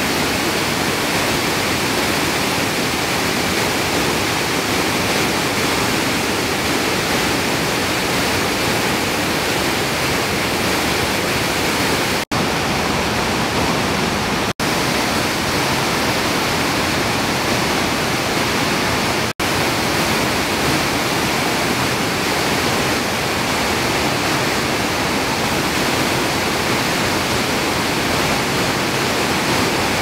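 Waterfall rushing steadily as water pours over tiered rock ledges, with a few momentary breaks in the sound.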